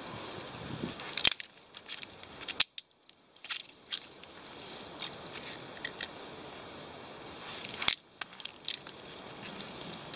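Small stick fire catching in a Bushbox XL steel wood stove: scattered sharp cracks and pops from the burning wood, the loudest a few near the start and one about eight seconds in, with sticks rustling as they are pushed in by hand. The cracking is the sign that the wood is dry inside beneath its damp bark.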